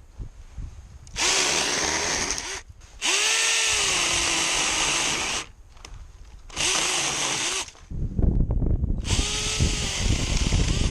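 Cordless mini chainsaw's electric motor running in four bursts, its whine dipping in pitch and recovering as the chain bites into wood. Low rumbling and crackling from the wood being cut join in during the last few seconds.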